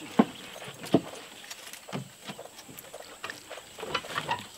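Irregular short knocks and water splashes as a hooked Papuan black bass is fought to the boat's side, the fish thrashing at the surface near the end.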